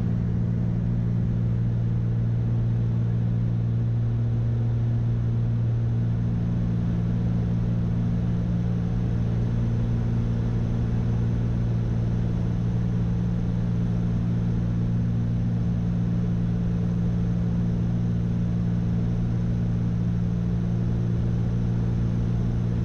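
The twin piston engines of a Cessna 310 droning steadily in the cockpit on final approach, gear down.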